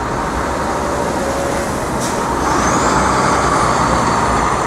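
Steady street traffic noise from passing vehicles, swelling in the second half. About two seconds in there is a brief sharp sound, followed by a thin high whine that rises and then holds.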